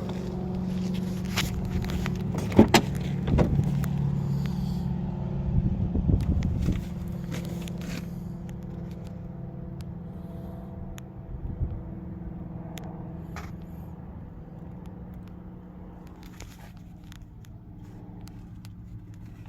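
A motor vehicle engine running steadily with a low hum, with scattered clicks and knocks over the first seven seconds or so. The hum slowly grows fainter through the second half.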